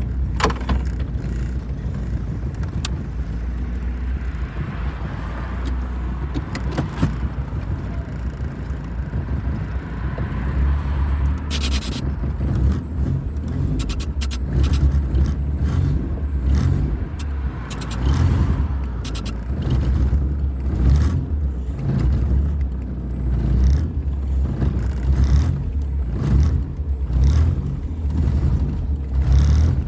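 Four-cylinder 1.8 engine of a 1992 VW Voyage running with a deep, steady rumble. From partway through, its level swells and falls every second or two, as if unevenly or with light throttle, and a few clicks sound around the middle.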